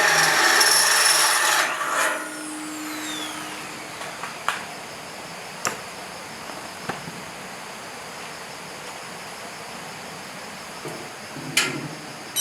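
A power tool runs loudly for about two seconds, then is switched off and winds down with a falling whine. A few light knocks and taps follow.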